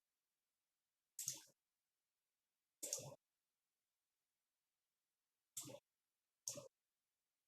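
Four short clicks, each over in a fraction of a second, spaced one to three seconds apart against dead silence.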